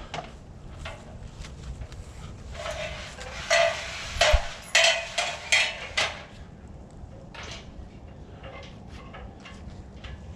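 A quick run of sharp clacks and knocks of hard objects, about eight in a few seconds, starting about two and a half seconds in.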